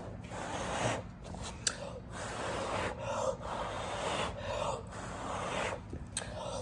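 A person blowing by mouth on wet poured acrylic paint to push it into blooms: a series of short breathy puffs, roughly one a second, with breaths taken between them. A steady low hum runs underneath.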